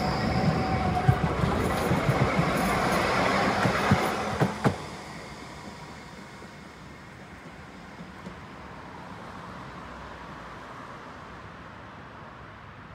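Tram running on rails, its wheels rumbling and knocking sharply several times over rail joints. The noise drops abruptly about five seconds in, leaving a quiet steady background hiss.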